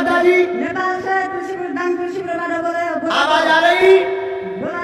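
Voices singing or chanting, with long held notes that glide slowly in pitch.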